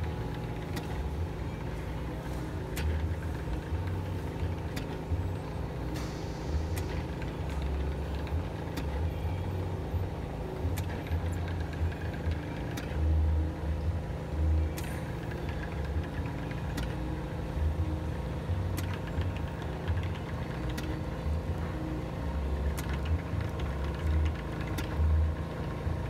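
Automatic phone glass-separator machine running, a steady mechanical hum with irregular low pulses and scattered clicks, as it works the cracked glass loose from the LCD.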